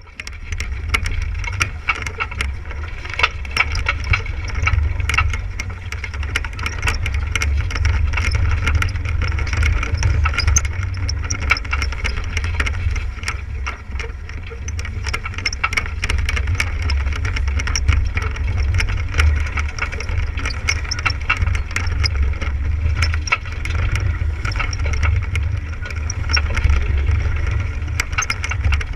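Wind on the microphone as a constant low rumble, with water rushing and splashing along the hull of a sailboat under sail, and many scattered small clicks and knocks.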